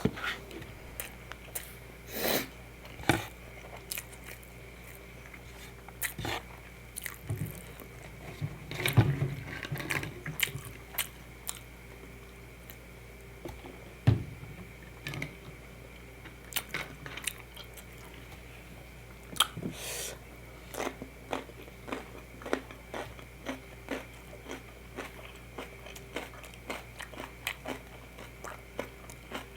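Close-miked eating: a person biting and chewing, with many short crunchy, wet mouth clicks and a few louder bites.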